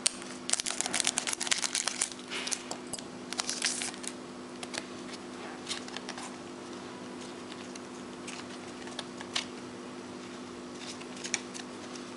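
A foil trading-card pack crinkling and tearing open for about the first four seconds, then occasional soft rustles and clicks as the cards inside are handled. A steady low hum runs underneath.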